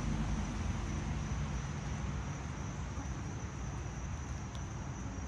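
An engine running steadily with a low rumble, with a thin steady high-pitched tone behind it.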